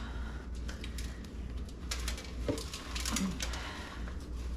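Leftover seed and debris rattling and clicking irregularly as a bird feeder is shaken and tapped out to empty it.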